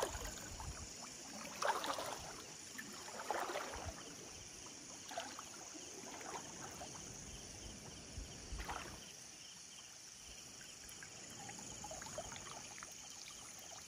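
Shallow water sloshing and splashing in short swishes, several times, as a cast net is hauled in by hand through the water, over a faint steady high-pitched hiss.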